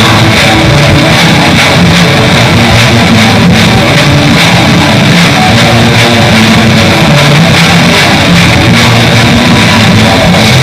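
Raw black metal: heavily distorted electric guitars over bass and drums, a loud, dense and unbroken wall of sound.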